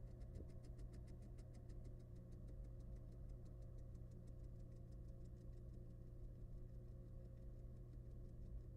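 Barn owl scratching itself with its foot: a fast, even run of soft scratchy ticks, about eight a second, that slowly fade, over a faint steady low hum.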